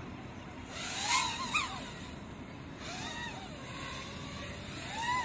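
GEPRC Mark5 5-inch FPV freestyle quadcopter's brushless motors whining in bursts as the throttle is punched and cut during tricks, the pitch rising then falling each time. The loudest burst comes about a second in, a fainter one near the middle, and another rising near the end.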